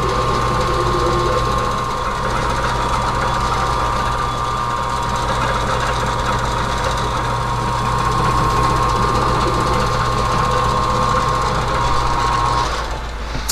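Metal lathe running, turning a large 4140 steel part while a half-inch end mill in the tailstock drill chuck plunges into its face: a steady hum and whine over a rough cutting noise. The hum and whine stop about a second before the end as the lathe is switched off.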